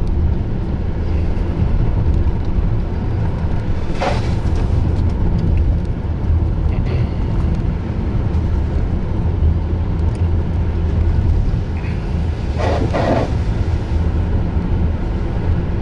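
Steady low road and engine rumble heard inside a moving car's cabin, with two brief, short sounds partway through.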